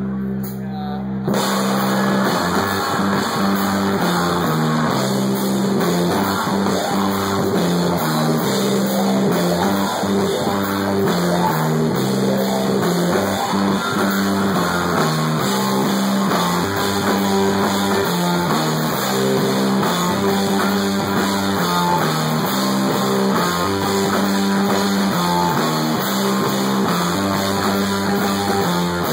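Live stoner-rock band playing loud, with electric guitar, bass guitar and drum kit. A held chord rings for about a second, then the full band crashes in with a heavy riff that runs on steadily.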